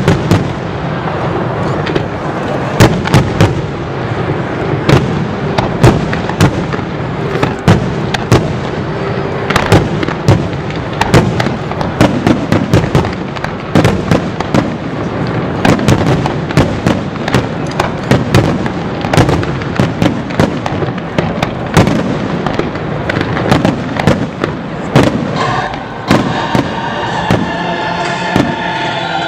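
Aerial fireworks shells bursting in dense succession, dozens of sharp bangs one after another over a continuous rumble. The barrage thins out near the end.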